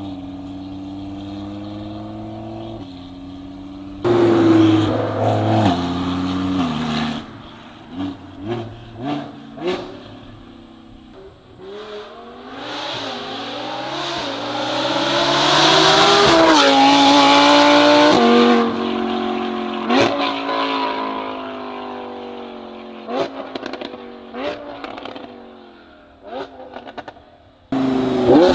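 Audi R8 GT's V10 with a titanium exhaust and equal-length headers, heard from outside the car: it idles, then is revved in quick free-revving blips. In the middle it makes one long climb to high revs and falls back, followed by more short blips.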